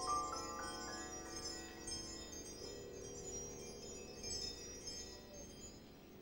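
Music of bell-like chimes. A rising run of struck notes climbs through the first second, then the tones ring on and slowly fade away, with a few soft further strikes.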